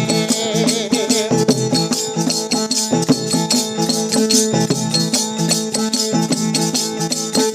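Instrumental interlude of a folk devotional song: steady held melody tones under fast, even jingling and rattling hand percussion, with the singer's last held note trailing off in the first second.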